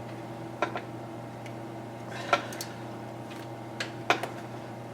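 Several separate sharp metal clicks from a ratchet and socket being worked on motorcycle fork clamp pinch bolts, over a steady low hum.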